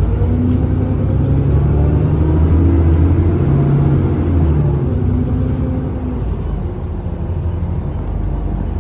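Alexander Dennis Enviro400 double-decker bus on the E40D chassis pulling under power, its engine note rising and then easing off after about five seconds, with a faint high whine, the 'hoover' sound.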